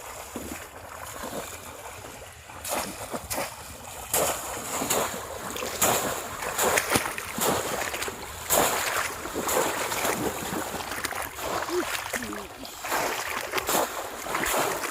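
Water splashing irregularly, quiet at first and then busier from about two and a half seconds in, with many short splashes close together.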